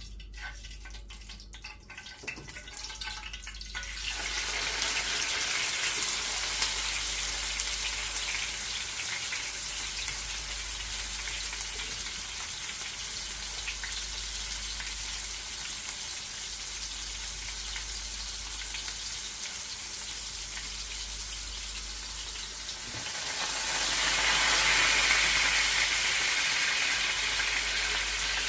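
Seasoned chicken pieces sizzling as they fry in hot oil in a pan. The steady hiss starts loudly about four seconds in and swells louder again for the last few seconds.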